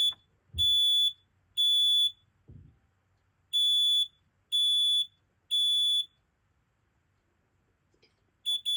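FireX FADCM combination smoke and carbon monoxide alarm sounding on test: loud, high-pitched beeps in the smoke-alarm three-beep pattern, two rounds of three with a pause between. Just before the end, a run of quick short beeps starts.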